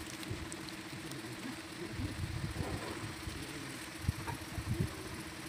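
Small air compressor feeding an airbrush, its motor running with a steady hum; a few dull low bumps sound over it about two, four and five seconds in.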